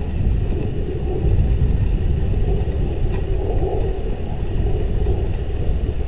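A steady low rumble.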